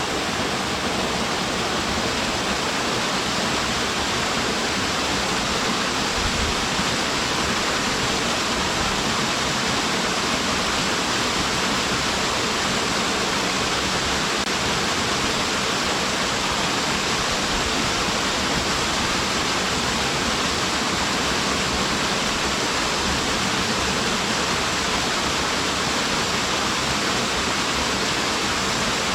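Small mountain waterfall pouring steadily into its plunge pool, a constant even rush of water.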